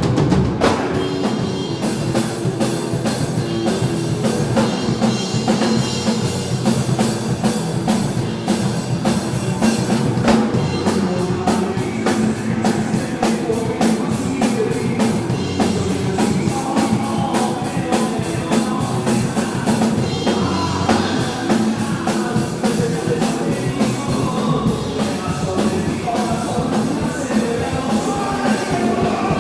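Live rock band playing, the drum kit prominent, with cymbals crashing and singing over the band.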